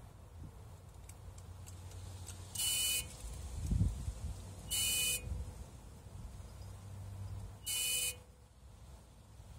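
Short electrical buzzes from a 2013 BMW 320d with its N47 diesel switched off: three brief high buzzing bursts a couple of seconds apart. This is the unexplained noise that kept recurring at random intervals for hours after shutdown. A low thump comes between the first two buzzes.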